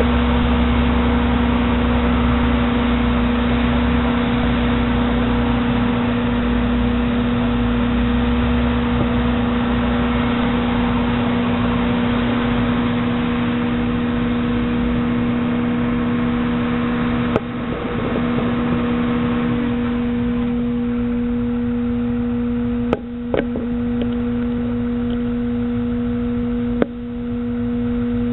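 Caterpillar 320E L hydraulic excavator's diesel engine running while the machine works, a steady drone with a strong constant hum. A few sharp knocks come in the second half.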